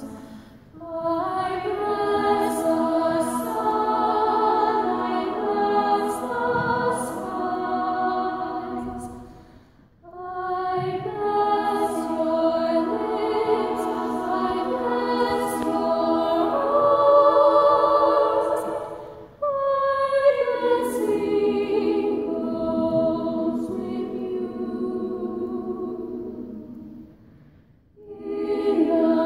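Two female voices singing a duet in long sustained phrases, with short breaks for breath about ten, nineteen and twenty-eight seconds in.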